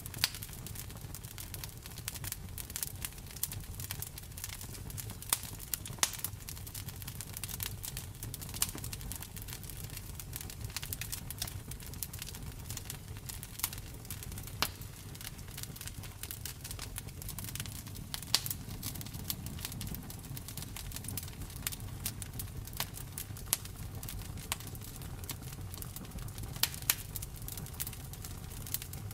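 Campfire burning: wood crackling with frequent, irregular sharp pops over a steady low rumble of the flames.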